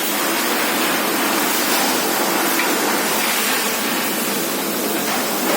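A steady, even rushing hiss with no pitch or rhythm.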